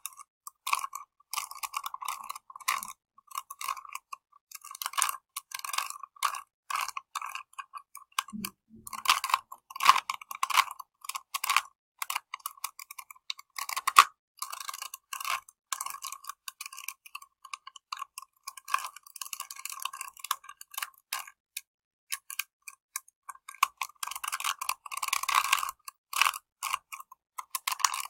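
Plastic clicking and clacking of a small Rubik's Cube being twisted, in quick irregular runs broken by short pauses.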